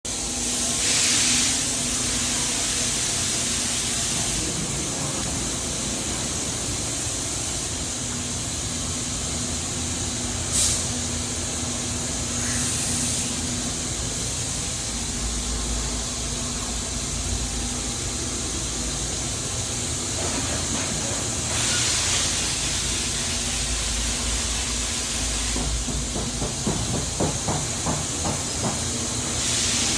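Okuma MA-40HA horizontal machining center running, a steady hiss with louder surges now and then and a quick run of pulses near the end.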